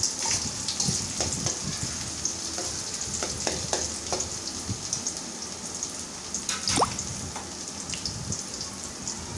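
Chopped onions with mustard seeds and curry leaves sizzling steadily in hot oil in an aluminium kadai as they sauté. A metal spatula scrapes and clicks against the pan now and then, with one short, sharper scrape about seven seconds in.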